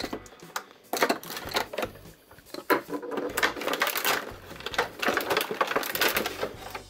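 Clear plastic packaging crackling and rustling as hands pull toy parts out of a cardboard box, with irregular light clicks and clatter of plastic pieces.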